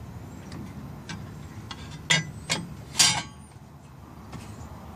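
Chrome-plated metal top plate of a Kilduff Lightning Rod shifter being set onto the shifter housing: three sharp metal clicks about two, two and a half, and three seconds in, the last the loudest.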